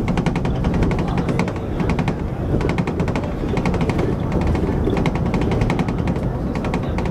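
City bus driving, heard from the driver's cab: a steady low rumble with several bursts of rapid rattling, many clicks a second, that come and go.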